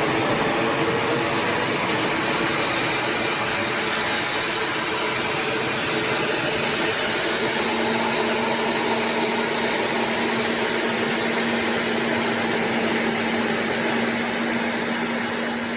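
Steady jet aircraft engine noise, a dense even hiss with a low drone; a steady low hum comes in about halfway through.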